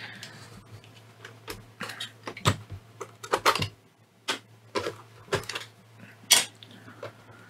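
Irregular clicks and knocks of a FrSky Taranis X9D Plus transmitter's plastic case being handled, turned over and set down on a cutting mat, a dozen or so sharp taps spread through the stretch.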